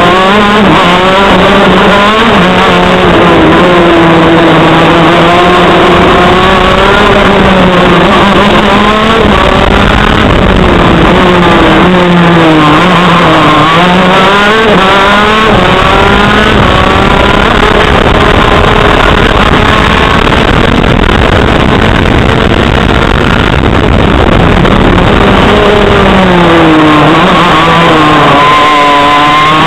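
TM KZ10C 125cc two-stroke shifter kart engine at racing speed, heard on board. Its pitch climbs and falls repeatedly as it runs through the gears, with deep drops about halfway through and near the end as it slows for corners and then picks up again.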